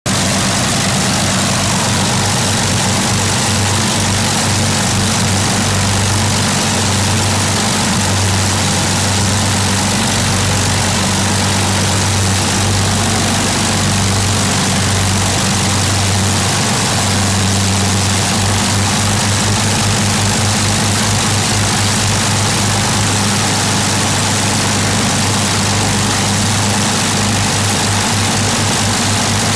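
Both Merlin V12 engines of a de Havilland Mosquito idling together on the ground with propellers turning: a steady low drone with a rhythmic pulsing in it, stronger in the second half.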